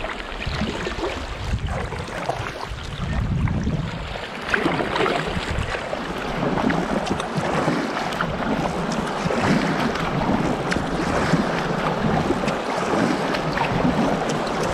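Water splashing and rushing around an inflatable kayak as it is paddled down a river, with wind buffeting the microphone. It grows louder about four seconds in.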